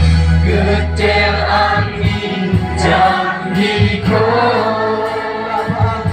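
Worship band playing a gospel song: a group of voices singing together over amplified guitars, sustained low bass notes and a steady beat.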